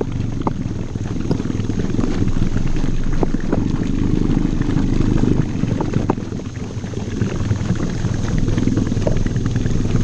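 Small outboard motor running steadily as the jon boat moves along, with water rushing and splashing against the aluminium hull and a few light knocks.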